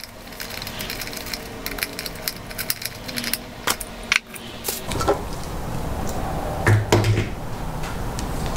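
Metal clinks, taps and rattles of a valve spring compressor tool being unbolted and lifted off a Honda K-series cylinder head, with a couple of louder knocks about seven seconds in.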